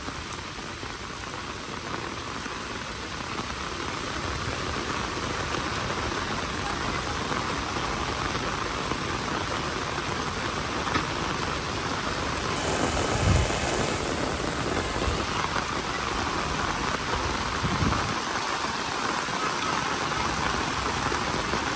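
Steady rain falling, a continuous even hiss of drops, with two brief low thumps, one a little past the middle and one later.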